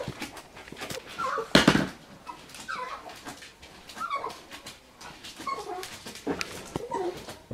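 Four-week-old puggle puppy whimpering in repeated short, high calls, with a loud thump about one and a half seconds in.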